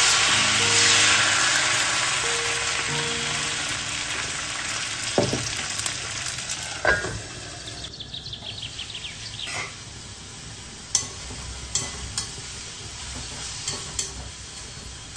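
Neer dosa batter sizzling on a hot iron tawa as it is poured and spread, a loud hiss that fades away over the first several seconds. Later come a few sharp clinks of a ladle against a pan.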